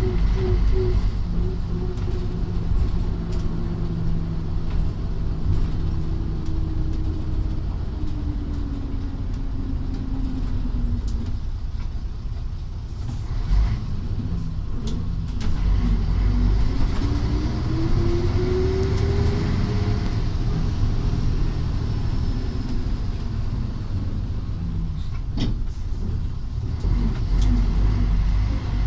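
Karosa C734.20 bus's diesel engine heard from inside the cabin while driving, over a heavy low road rumble. The engine note sinks over the first third, climbs steadily from about halfway as the bus pulls, then drops again, with scattered small rattles and clicks.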